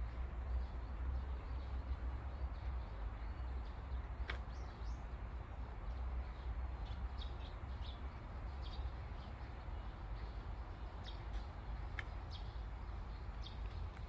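Park ambience: small birds chirping in short calls here and there over a steady low rumble, with two sharp clicks, about four seconds in and again near the end.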